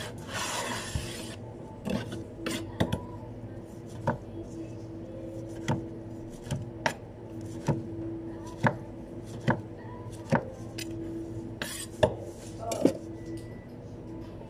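Long kitchen knife slicing through a sushi maki roll, its edge knocking sharply on the cutting board about once a second, a dozen or so times. A short rubbing hiss near the start.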